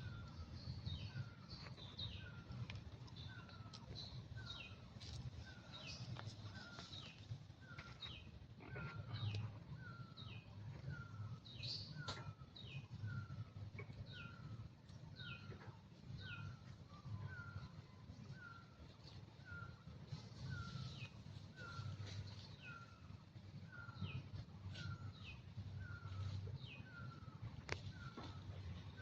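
Birds calling: one repeats a short falling chirp about once a second, while others add scattered higher, falling chirps, all over a low steady rumble.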